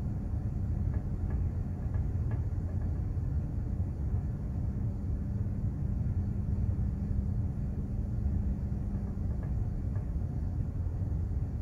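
Steady low rumble and constant hum aboard a container ship under way.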